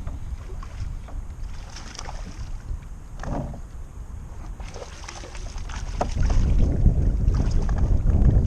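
Wind buffeting the microphone in gusts, growing heavier about six seconds in, with small splashes of water against a kayak.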